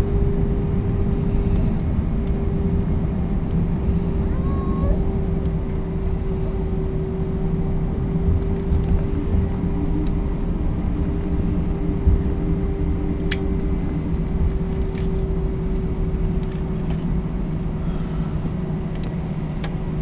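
Airliner cabin noise: a steady low rumble of the engines and airflow, with a constant droning hum, heard from inside the passenger cabin.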